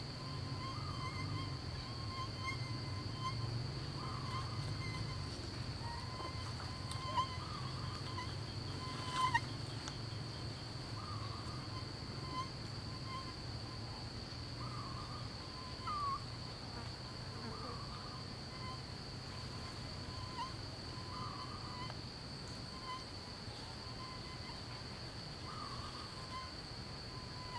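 Steady high-pitched insect drone, with scattered short chirps over it and two sharp clicks about seven and nine seconds in.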